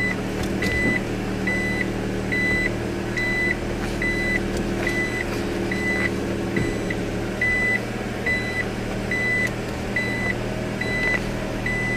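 A car's reverse-gear warning beeper sounding a steady, even high beep about once every three-quarters of a second while the car is backing up, over the low hum of the idling engine.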